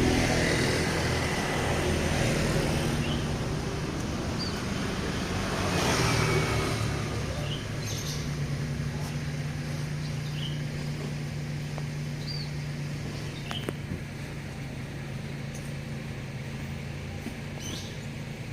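Bus engine running steadily at a low, even pitch, with road traffic swelling past near the start and again about six seconds in.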